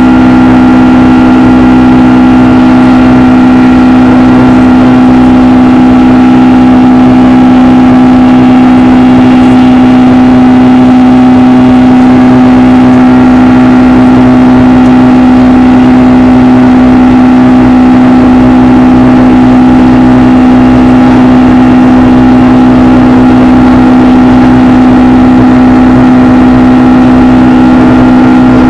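Boeing 757-200's jet engines running at climb power, heard from inside the passenger cabin: a loud, steady drone with a strong low hum and a few higher steady tones above it.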